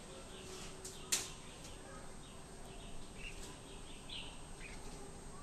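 Giant panda eating bamboo, with one sharp crack of a stalk snapping about a second in and a few fainter clicks of chewing. Small birds chirp throughout.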